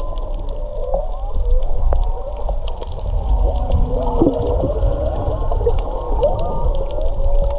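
Whale song heard underwater: many overlapping calls glide up and down in pitch, with a faint crackle of clicks and a low rumble of moving water under them.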